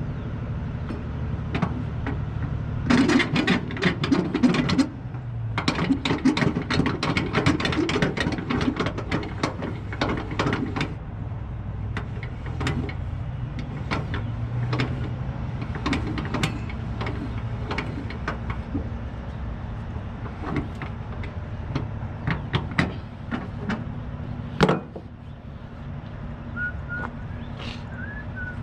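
Heavy truck diesel engine idling steadily. From about three to eleven seconds in there are dense runs of sharp metallic clicking and rattling, then scattered single clicks.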